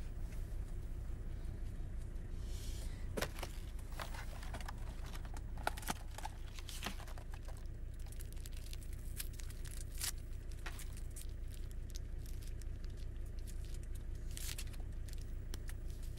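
Small objects handled in the hands: a plastic container and packaging giving scattered clicks, taps and crinkling rustles, clustered in the first half and again near the end. Under them runs a steady low rumble from a car.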